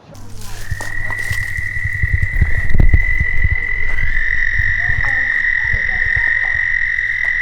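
A frog calling: one long, steady high trill that starts about half a second in and carries on without a break, over a low, uneven rumble of wind on the microphone.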